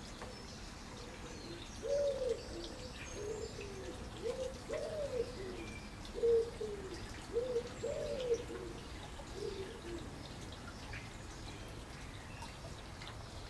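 A pigeon cooing: a run of about a dozen low coos from about two seconds in to about ten seconds in, with faint small-bird chirps behind.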